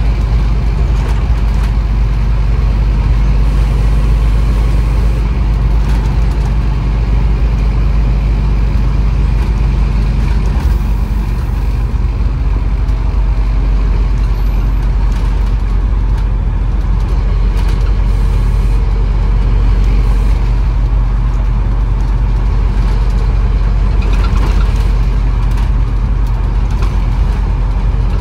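Scania N230UB OmniCity bus's five-cylinder diesel engine running with a steady low drone, its note shifting slightly about eleven seconds in.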